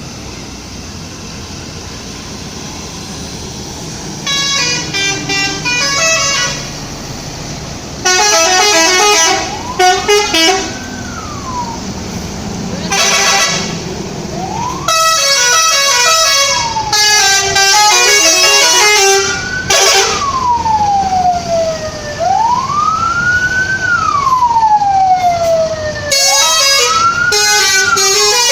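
Telolet multi-tone horn on a bus playing short, fast tunes of stepped tones in repeated bursts, mixed with wailing siren tones that rise and fall. A low engine rumble runs alone for the first few seconds before the horn starts.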